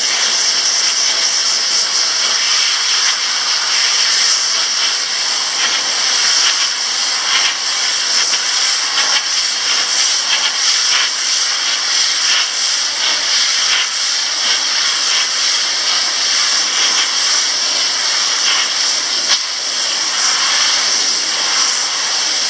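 Compressed-air blow gun hissing steadily as it blasts water out of a washable electrostatic furnace air filter. The hiss rises and falls slightly as the nozzle is swept across the filter.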